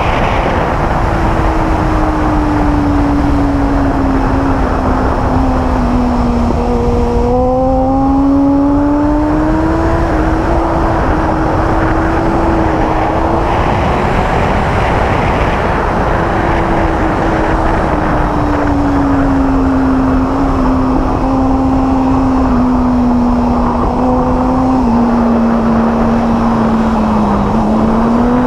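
A 600cc inline-four sport bike engine running at speed on a racetrack, heard under a loud, even rush of wind noise. Its note sinks slowly and climbs again, twice, with no sharp revving.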